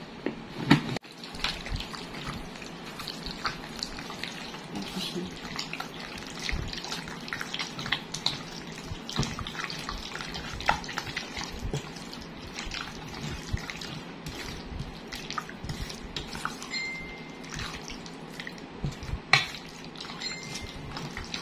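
Bare hands squeezing and turning raw boneless chicken thigh pieces in a thick marinade in a stainless steel bowl: irregular wet squelching and squishing.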